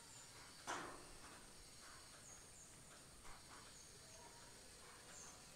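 Near silence: quiet outdoor ambience with faint, short high chirps every second or so, and a brief burst of noise about a second in.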